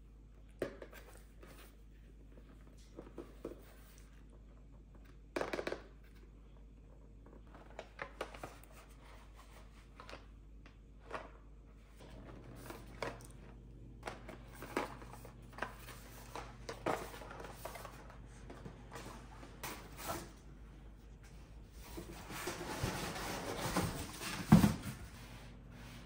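Cardboard boxes being handled and set down on a wooden floor: scattered taps and rustles of cardboard, then a longer scraping rustle and a loud thump near the end as a large box is put down.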